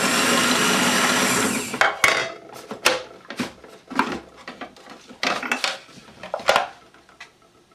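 Energiya food processor's electric motor running, its cracked bowl stitched together with fishing line; it is switched off a little under two seconds in. A series of sharp clicks and knocks follows.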